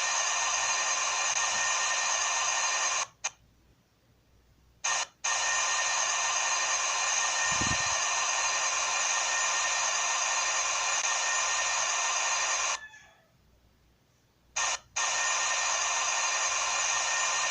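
A CNC machine running with a steady high whine over a hiss. The sound cuts out abruptly twice for a second or two, with a brief blip before it comes back each time.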